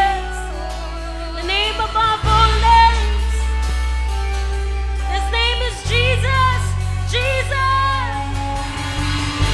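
Live worship song: a woman singing into a microphone over strummed acoustic guitar and deep held bass notes that change about every three to four seconds.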